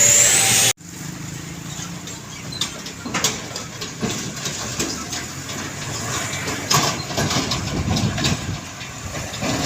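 Roadside traffic: a heavy truck engine running under scattered clicks and knocks. A loud stretch at the start cuts off abruptly under a second in.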